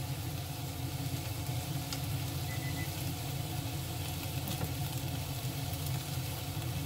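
Browned chicken thigh pieces sizzling steadily in hot oil in a frying pan while a paper towel held in metal tongs blots up the excess fat, with a few faint scrapes of the tongs. A steady low hum runs underneath.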